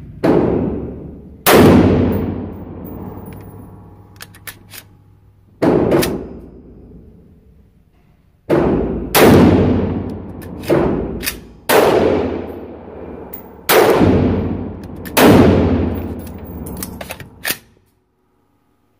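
Gunshots in an indoor shooting range, about nine of them at uneven intervals, each ringing off the walls with a long echoing decay, with a few faint metallic clicks between them.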